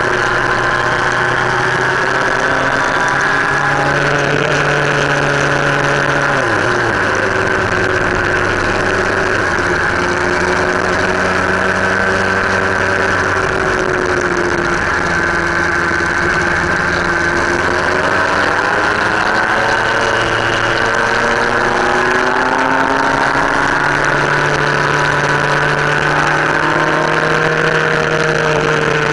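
Motorcycle engine running while riding, heard from a camera mounted on the bike. Its pitch drops sharply about six seconds in, then climbs steadily over the last ten seconds as the bike speeds up.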